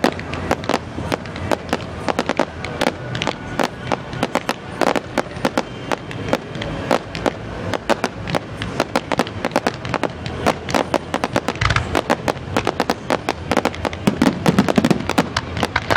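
Fireworks display: a rapid, unbroken barrage of bangs and crackles from many shells bursting at once, growing louder near the end.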